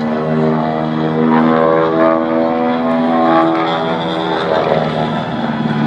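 Propeller-driven aerobatic airplane's engine running through its aerobatic manoeuvres, its pitch rising and falling as it banks and passes.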